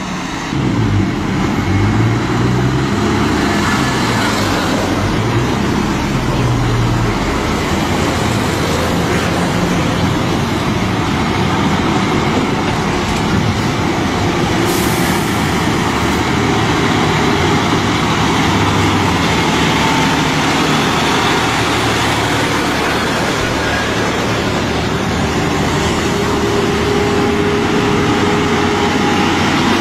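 Heavy dump trucks' diesel engines running in road traffic, the engine pitch rising and falling over the first several seconds, with a short hiss about halfway through.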